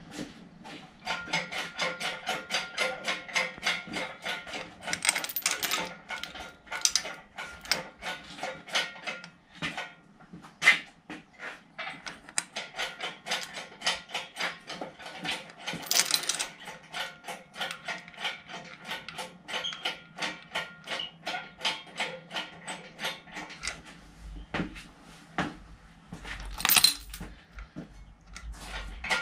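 Steel lifting chain clinking and rattling in a quick, steady rhythm of about three clinks a second, each link ringing briefly. It is being handled to lift the engine.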